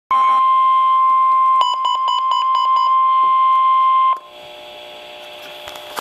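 Midland NOAA weather radio sounding the National Weather Service's 1050 Hz warning alert tone, a loud steady tone that cuts off after about four seconds. For about a second and a half in the middle, a rapid string of short beeps, around six a second, sounds over it. Afterward only a faint steady hum from the radio remains.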